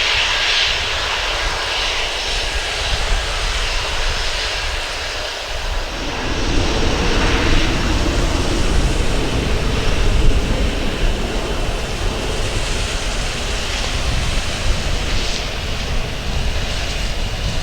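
Cargo airliner's engines running, a steady loud rush of engine noise that grows fuller and deeper about six seconds in.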